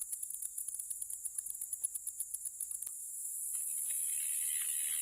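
High-pitched, rapidly pulsing insect chirping. About three seconds in it turns into a steadier shrill hiss, and a lower steady hiss joins it soon after.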